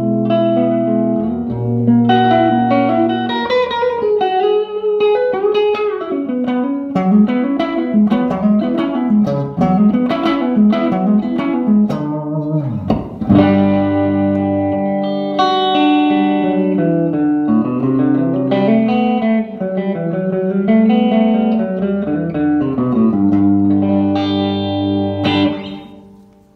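Electric guitar played through a 1959 Airline 8500-S tube amplifier, with no added effects: chords mixed with quick single-note runs. About halfway through comes one deep dip in pitch and back up. It ends on a chord that dies away near the end.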